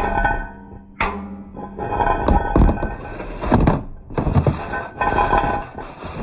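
Martian cylinder sound effect: a run of sudden heavy metallic thunks, each ringing on for about a second with several steady tones, starting again roughly every second.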